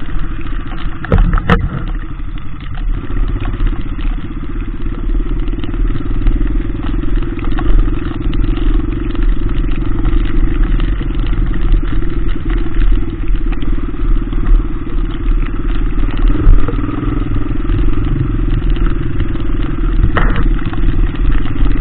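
Single-cylinder four-stroke dirt bike engine running steadily at low revs while riding slowly through mud, with a few sharp knocks about a second in and again near the end.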